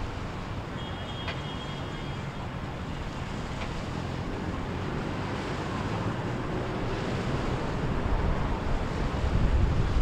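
Wind buffeting the microphone over surf, with a boat's engine running; the rumble grows louder over the last few seconds.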